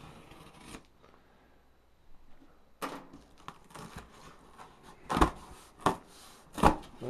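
Packing material and cardboard being handled inside a shipping box: scattered rustles and clicks, then three sharp knocks in the last two seconds.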